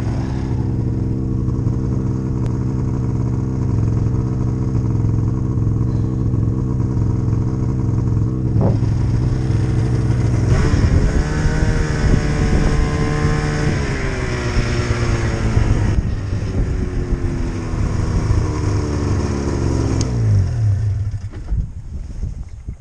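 Polaris snowmobile engine running steadily under the rider, its pitch rising and wavering from about ten seconds in, then falling away near the end as the engine slows.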